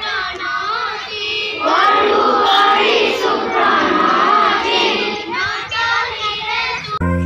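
A large group of schoolchildren singing together in unison, many voices at once.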